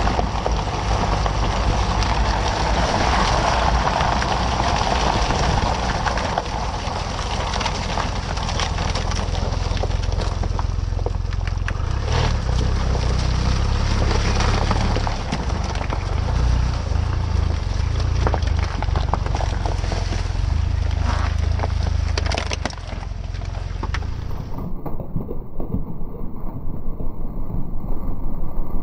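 Vehicle driving slowly over packed snow and slush, its engine giving a low rumble while the tyres crunch and crackle over the snow.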